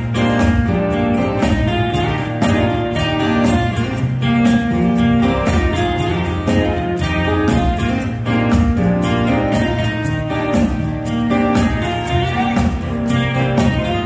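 Several acoustic guitars played together live, strummed and picked.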